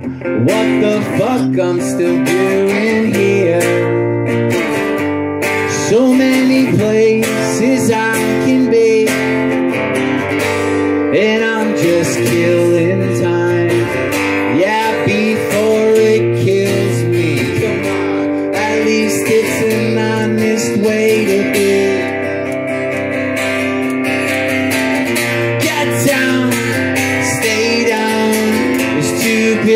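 Acoustic guitar strummed in steady chords while a man sings over it: a solo acoustic song.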